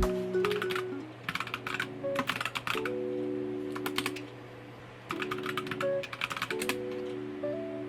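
Several short runs of rapid clicks, one after another, over gentle background music with sustained tones.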